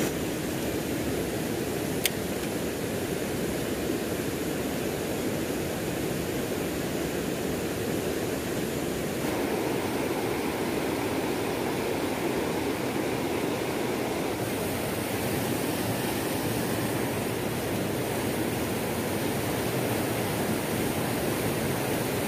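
River water rushing over boulders and through shallow rapids: a steady rushing, shifting in tone twice, with a single sharp click about two seconds in.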